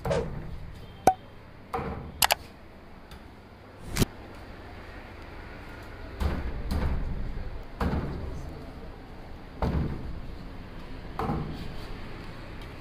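Cleaver chopping fish into steaks on a wooden chopping block: a series of dull thuds every second or two, with a few sharp knocks in the first few seconds.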